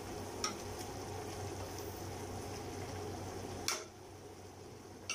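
Chicken pieces simmering in a little water in a metal pot, stirred with a spatula: a steady bubbling hiss, with the spatula clinking against the pot about half a second in and more sharply about three and a half seconds in. After the louder clink the stirring noise drops.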